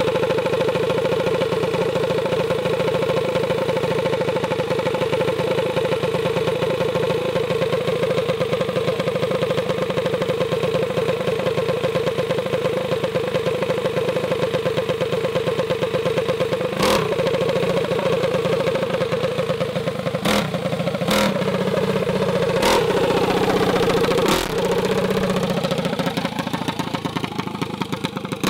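Mini bike's small gasoline engine running steadily with a fast, even beat. In its last third come a few sharp clicks and the pitch wavers up and down.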